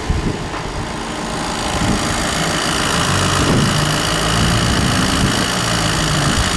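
VW T6's Euro 6 four-cylinder diesel engine idling steadily just after being started.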